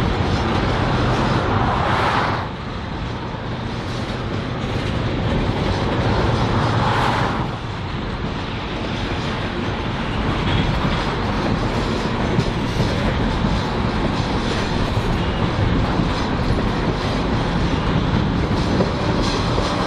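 A loaded crude-oil unit train rolls past close by, its tank cars' wheels rumbling steadily on the rails behind a passing BNSF diesel locomotive's engine drone. The noise swells briefly twice, about two and seven seconds in.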